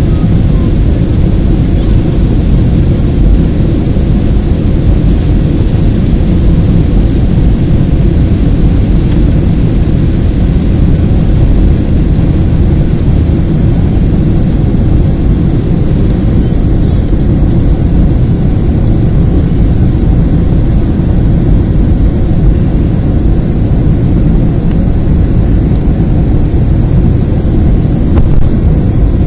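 Loud, steady rumble of a jet airliner's engines and rushing air heard inside the passenger cabin, as the aircraft climbs after takeoff.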